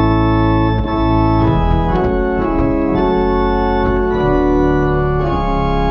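1871 Walker pipe organ playing a hymn in slow, sustained chords that change about once a second, with an extra upper stop drawn to brighten the tone.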